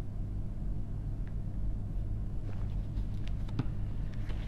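Steady low background rumble, with a few faint clicks in the second half.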